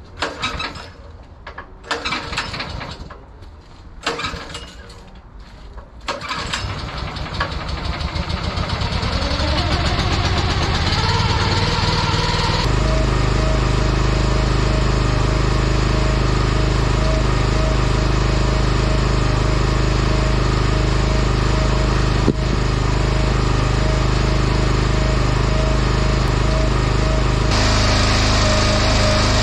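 Gas engine of a log splitter being started: a few short bursts, then it catches about six seconds in, speeds up over several seconds and settles into a steady run.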